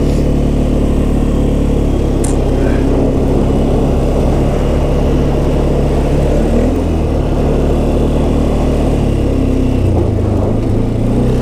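A vehicle engine running steadily while under way. Its pitch shifts about two-thirds of the way through and again near the end as the speed changes.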